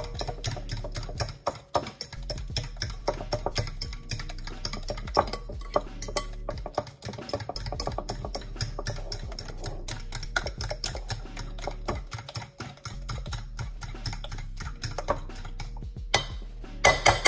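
Background music over a spoon stirring a wet batter in a glass mixing bowl, with many small clicks of the spoon against the glass.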